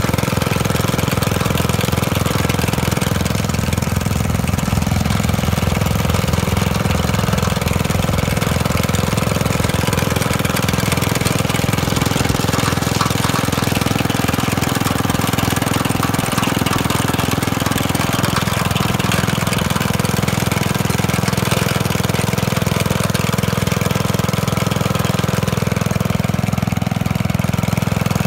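Rapid Rex walk-behind sickle bar mower's engine running steadily as the machine cuts tall grass.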